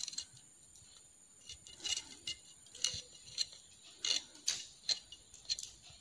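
Metal blade scraping the skins off jackfruit seeds: about ten short, irregular scrapes and clicks.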